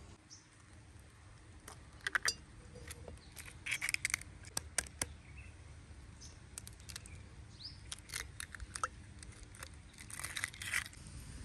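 Light clicks and taps of a glass jar and eggshell being handled, in short clusters, with an egg broken open and emptied into the jar near the end. A few faint bird chirps in the background.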